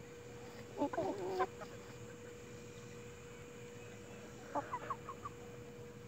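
Plymouth Rock and Hamburg hens clucking as they forage. There is a short run of calls about a second in and a quicker run of clucks near five seconds, over a steady faint hum.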